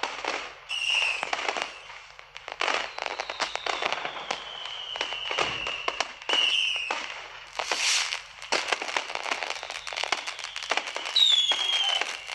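Fireworks going off: a dense, irregular run of cracks and bangs, with whistles that fall in pitch, one drawn out over about three seconds and a short, loud one near the end.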